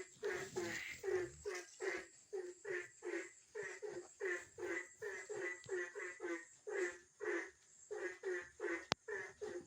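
Frogs croaking in a steady run of short calls, about two or three a second, with a single sharp click near the end.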